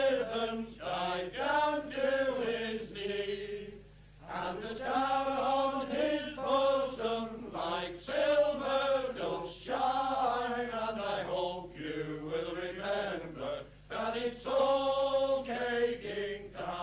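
Unaccompanied voices singing a chant-like folk song in held phrases, with a short break about four seconds in and another near fourteen seconds. Old, narrow-band recording with the top end cut off.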